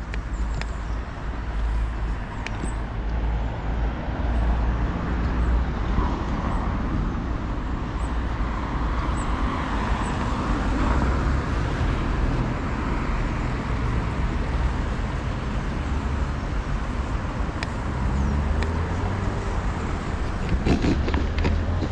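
Street traffic noise, with a car driving past close by about halfway through and another vehicle's engine rising in pitch near the end.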